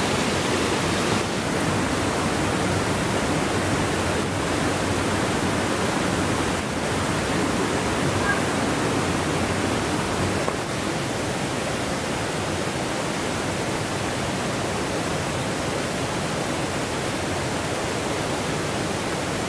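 Rushing water of a rocky mountain stream cascading over boulders: a steady, even rush that turns a little quieter about halfway through.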